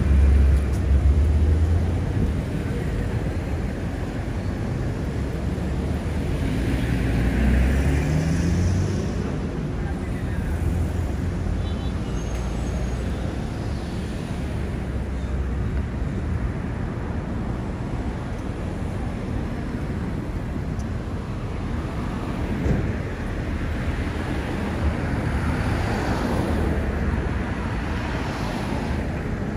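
Street traffic: a steady roadway rumble of passing cars, with a heavy low rumble at the start and a vehicle's engine note rising in pitch about seven to nine seconds in.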